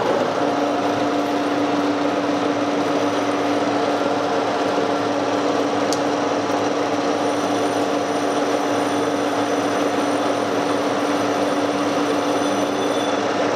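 Metal lathe running steadily with its chuck spinning, a steady machine hum and gear whine, while the cutting tool takes a light finishing cut of about a tenth of a millimetre on a steel mandrel's seating collar and face. A steady tone sets in about half a second in.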